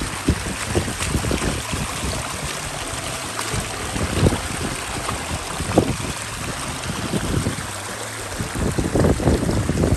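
Small mountain creek cascading over rocks: a steady rush of running water, with irregular low buffeting on the microphone.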